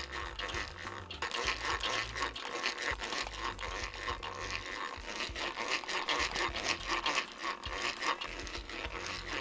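A thin saw blade cutting through plywood, a rough rasping scrape in quick irregular strokes.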